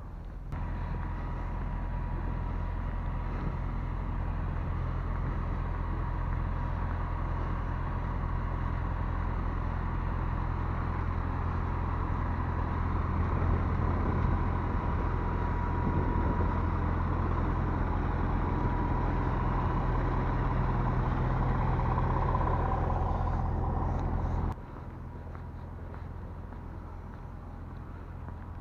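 Heavy truck diesel engine running steadily at close range, a low even rumble with a faint whine over it. It stops suddenly about 24 seconds in.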